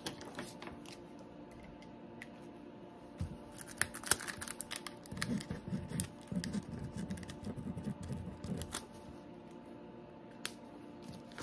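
A marker pen writing on the diamond painting canvas: a quiet, scratchy rubbing that lasts a few seconds in the middle, with a few sharp clicks before it and one near the end.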